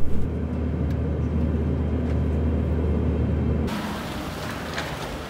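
Steady low drone of an airliner cabin in flight. About four seconds in it cuts suddenly to quieter outdoor street noise, an even hiss beside a parked car.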